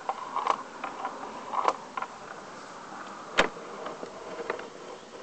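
A few sharp clicks and short scraping knocks over a faint steady hum, the sharpest click about three and a half seconds in.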